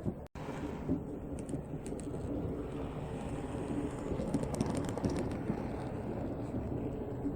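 HO narrow-gauge model train running on 9 mm track: a steady low rumble from its small motor and wheels, with a scatter of light clicks in the middle of the run.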